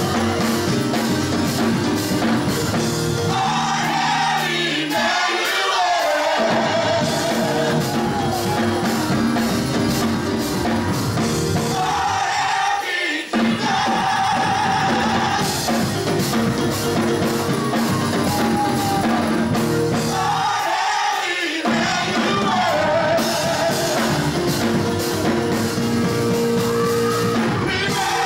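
Mass gospel choir singing full-voiced over instrumental backing with a steady beat; the low accompaniment drops out briefly three times, about every eight seconds.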